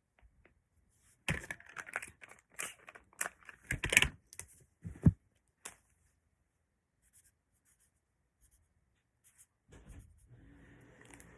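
Close handling noises: a dense run of rustling, scraping and clicks for a few seconds, then sparse faint ticks. A faint steady hum starts near the end.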